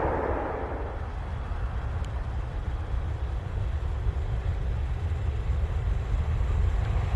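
Low, steady rumble of an approaching freight train in the distance. Louder train noise fades away in the first second.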